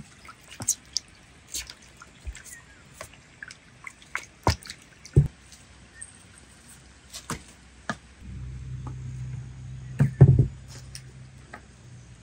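Onions being peeled by hand with a small knife: scattered short clicks, taps and crackles of blade and dry skin. A low steady hum comes in about eight seconds in, and a couple of dull thuds near ten seconds are the loudest sounds.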